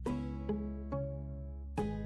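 Background music: a plucked-string melody over a steady bass, with a new note about every half second.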